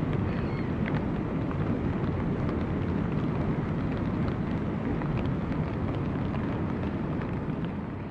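River ice drift: a steady rushing noise of ice floes and slush carried on the current, sprinkled with small crackles and clinks of ice, over a low wind rumble on the microphone.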